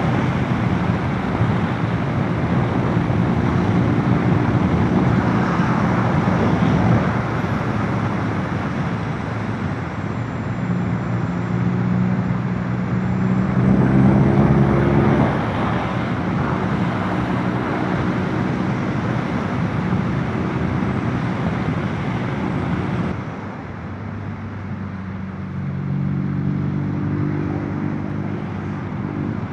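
Motorcycle engine running while riding, with wind rushing over the microphone. The engine note comes and goes and shifts in pitch, and the wind noise drops about three-quarters of the way through.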